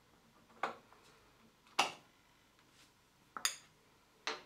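Four sharp metallic clicks and knocks, about a second apart, the third a quick double: the metal valve body of an Aladdin EasyFit isolator being worked loose and lifted off its clamp saddle on a copper pipe.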